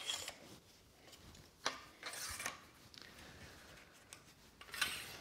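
Faint handling noise of a Manfrotto Nano Plus light stand being raised: its tube sections sliding and rubbing, with a sharp click a little under two seconds in and another brief rattle near the end.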